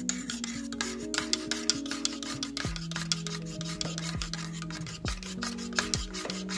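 Metal spoon stirring fast in a ceramic mug of hot chocolate, scraping and clinking against the mug's wall and bottom in quick, repeated strokes.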